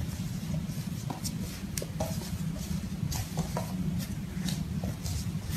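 French bulldog puppy tugging at a curtain on a hardwood floor: scattered light clicks and scuffles from its claws on the boards and the pulled fabric, over a steady low rumble.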